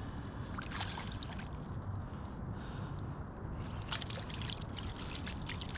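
Water splashing and trickling in a landing net as a small brook trout thrashes and is handled in shallow stream water, with several short sharp splashes over a steady stream murmur.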